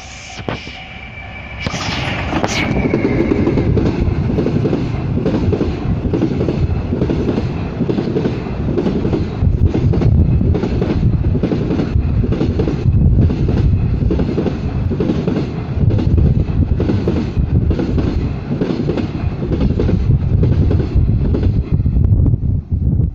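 A train passing close by, swelling up about two seconds in and then running loud and steady, its wheels clattering over the rail joints.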